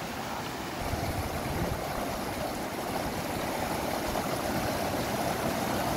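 Rushing water of a small mountain stream pouring over and around boulders: a steady, even rush.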